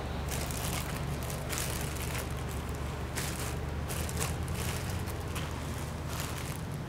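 Steady low machinery hum of a machine shop, with faint scattered clicks and rustles of parts being handled.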